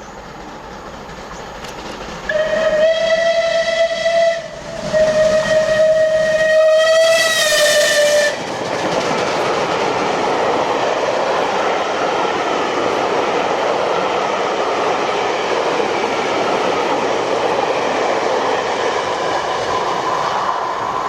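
Steam whistle of LNER A1 Class 4-6-2 No. 60163 Tornado, sounding two blasts on one note: a short blast, then after a brief break a longer one that rises slightly in pitch near its end. The whistle then gives way to a loud, steady hiss of steam.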